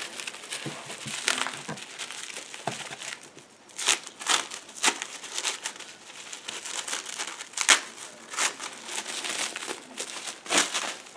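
A stack of Cardfight!! Vanguard trading cards being handled and flipped through by hand: a rustling of card stock with irregular sharp snaps as cards slide and slap against each other.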